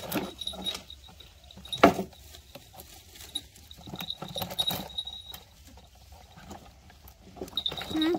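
Baby macaques scrambling over a plastic toy ride-on: scattered plastic taps and rattles with a sharp knock about two seconds in, and a short squeak from a monkey near the end.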